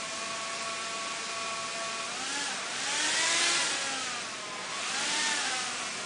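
Quanser 3DOF helicopter's two propeller motors whirring with several steady tones, then rising and falling in pitch in two swells from about two seconds in as the controller changes rotor speed to turn the helicopter another 45 degrees.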